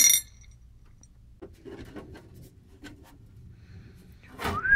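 A power drill-driver's motor whine that stops just after the start, then small clinks of steel screws in a glass dish and light handling noise. Near the end comes a louder scraping noise as the amplifier's metal top cover is lifted off the chassis.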